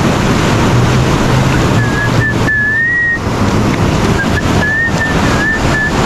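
Steady rush of surf and wind on the microphone, with someone whistling a few short notes about two seconds in and again in the second half.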